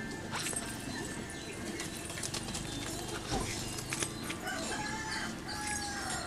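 Small birds chirping and calling in the trees: many short, quick chirps, with a few longer falling calls near the end. Scattered sharp clicks or knocks sound among them.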